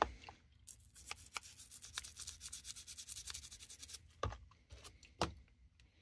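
A toothbrush scrubbing the back tools of a Swiss Army knife in soapy water, a run of rapid bristle strokes for about three seconds. Two separate knocks follow near the end.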